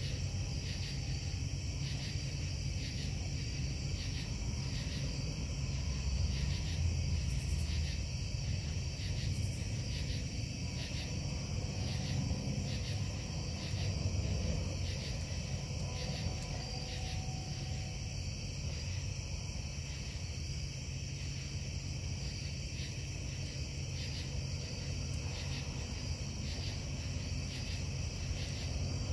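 Steady low industrial rumble from a metal-casting plant running at night. Night insects chirp over it in a regular pulse.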